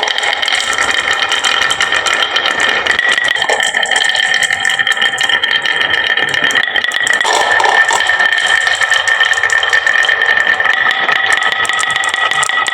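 Many glass marbles rolling and clattering down a wooden marble run, a continuous dense rattle with a steady high tone running through it.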